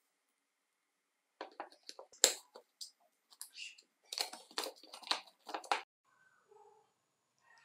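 A chainsaw chain brake's steel band and small metal parts being handled and fitted into its plastic side cover: a run of light clicks and rattles, with one sharp click about two seconds in and a dense clatter from about four to six seconds.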